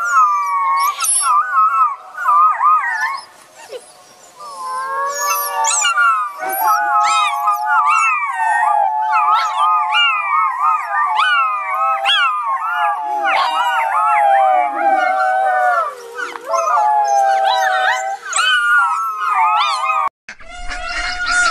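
A group of wolf pups howling together, several wavering howls overlapping at different pitches, with a brief lull about four seconds in. The howling cuts off abruptly just before the end.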